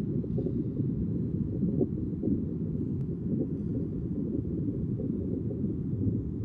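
A steady, dense low rumble with nothing above it, holding at one level throughout.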